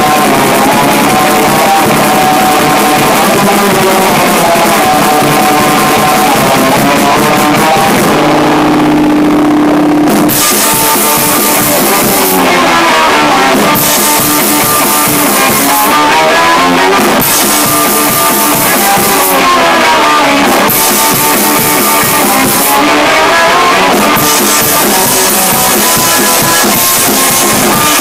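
Loud, noisy rock jam on guitar and drum kit. About eight seconds in, the drums drop out for a couple of seconds under a held low guitar note, then the full band comes back in, pausing briefly every few seconds.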